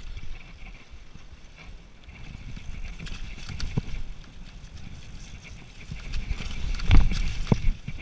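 Specialized Demo 7 downhill mountain bike rattling down a rocky trail: tyres rumbling over stones and the bike clattering, with a few sharp knocks from hits on rocks, the hardest about seven seconds in.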